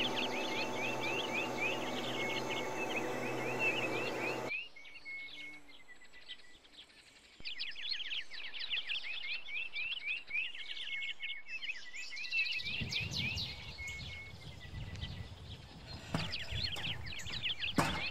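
Songbirds chirping and trilling in quick repeated phrases. For the first four seconds or so a steady motor hum from the running mist sprayer sits under them and then cuts off suddenly; a low rumble comes in about two-thirds of the way through.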